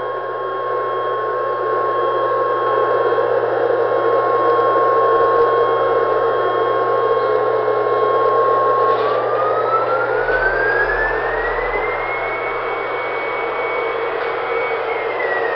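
Battery-powered toy jumbo jet playing its electronic jet-engine sound: a steady rushing roar under a whine that glides up in pitch about nine seconds in, holds at the higher pitch, and starts to fall near the end.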